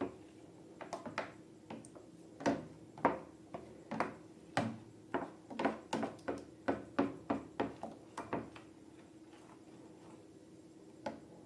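An irregular run of sharp taps and clicks, about two or three a second, stopping after about eight seconds, with one more near the end, over a steady low hum.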